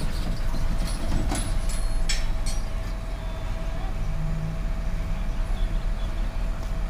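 Diesel dump truck engine running as the emptied truck pulls away, a steady low rumble, with a few sharp knocks in the first two and a half seconds.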